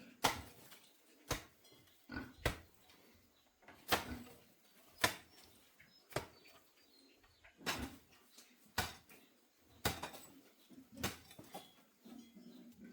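Sharp knocks of a tool striking, about one a second at an uneven pace, a dozen or so in all.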